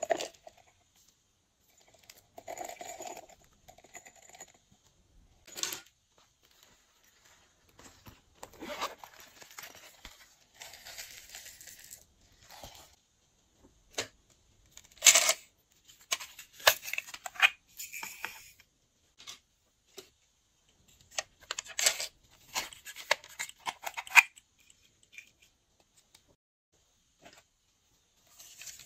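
Glossy slime being worked by hand, giving irregular bursts of sticky crackles, pops and clicks with short pauses between them.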